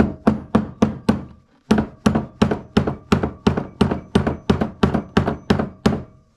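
Hammer blows ringing on steel, about four a second with a short pause about one and a half seconds in: working a clevis hook onto a chain to finish making it up.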